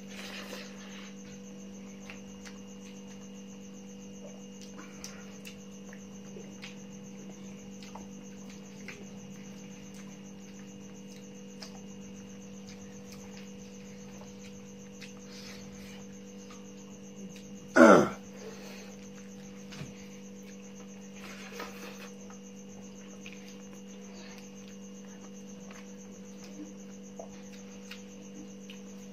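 A steady electrical hum runs through, with faint clicks and ticks of fingers scooping rice on a steel plate and of chewing. About eighteen seconds in comes one loud, short sound that falls quickly in pitch.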